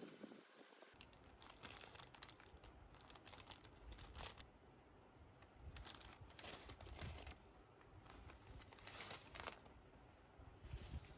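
Faint crinkling and rustling of packaging being handled, coming in short irregular spells.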